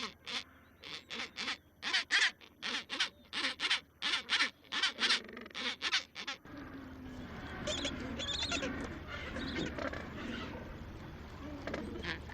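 A quick series of short, sharp sounds, about three a second, then, after a sudden change about halfway through, a dense jumble of many birds calling over one another.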